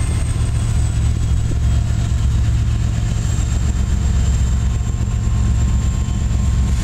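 Norfolk Southern SD70ACE diesel-electric locomotive's EMD 16-cylinder two-stroke engine running with a steady low rumble as it leads a stack train slowly closer. A faint high whine sits above it, slowly dropping a little in pitch.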